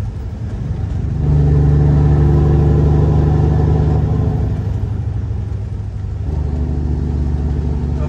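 Semi truck's diesel engine running, heard inside the cab: a steady low engine note that gets louder about a second in, holds, and eases back around five seconds in.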